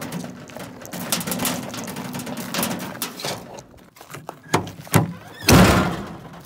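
Scrap metal clattering and clanking as it is handled and thrown onto a scrap pile, with a few sharp knocks and one loud, heavy crash about five and a half seconds in.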